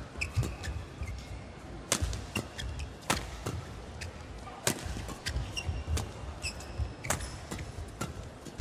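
Badminton rackets striking the shuttlecock in a fast doubles rally: sharp cracks every second or so, the loudest about two, three, nearly five and seven seconds in. Court shoes give short squeaks on the floor in between.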